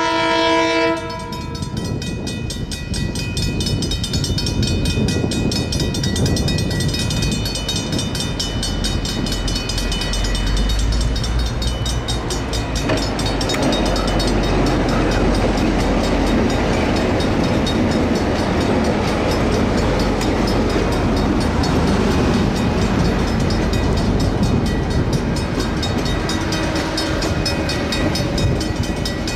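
A diesel train horn blast that ends about a second in, then two KiwiRail DC-class diesel-electric locomotives approaching and passing close by with a deep engine rumble that is strongest in the middle, followed by the rolling wheel noise of AK-class passenger carriages going by.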